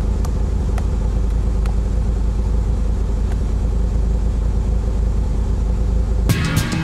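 Turbocharged 4G63 inline-four of a Mitsubishi Eclipse GSX idling steadily at operating temperature, heard from inside the cabin. Funk guitar music cuts in near the end.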